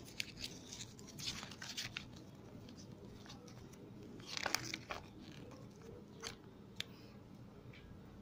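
Paper pages of a small printed instruction booklet rustling and crackling as they are handled and turned, with a louder rustle about four and a half seconds in and a couple of sharp clicks later on.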